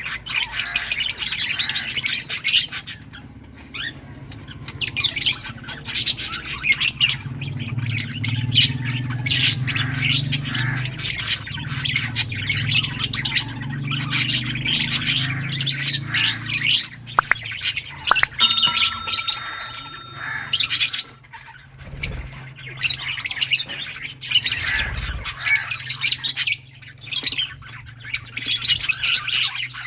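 A group of lovebirds chirping and squawking in rapid, shrill runs, with a few brief pauses.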